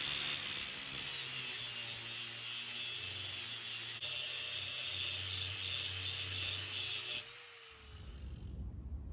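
Angle grinder grinding the steel of a crowbar blade, a steady harsh hiss over the motor's whine. About seven seconds in it comes off the metal and the motor winds down.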